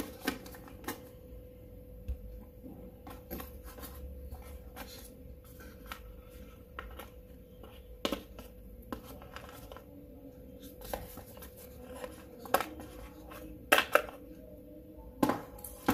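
Hands handling true-wireless earbuds and their charging case in a packaging tray: irregular clicks, taps and light rustles as the earbuds are prised out and turned over, over a faint steady hum.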